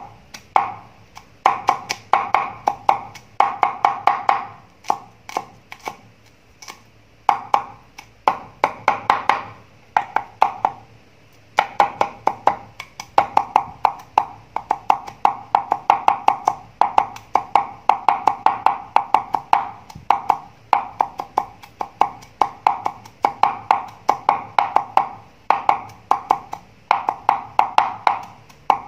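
Cleaver rapidly chopping garlic on a round wooden chopping board, in quick runs of sharp knocks with short pauses between them.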